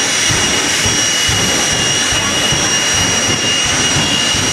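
Jet engines of jet-powered drag vehicles running: a loud, steady roar with a high whine held over it.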